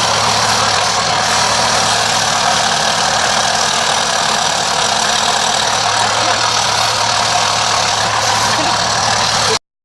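Steady machine noise: a low motor hum under a broad, even hiss. It cuts off suddenly near the end.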